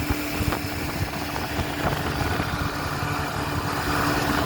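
Boat's outboard motor running steadily under way, a constant hum over a low rumble.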